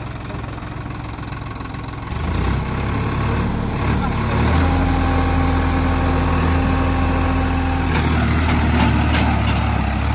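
Swaraj 963 FE tractor's three-cylinder diesel engine picking up revs as the tractor pulls away, growing louder about two seconds in, then running steady under throttle. A few light clicks near the end.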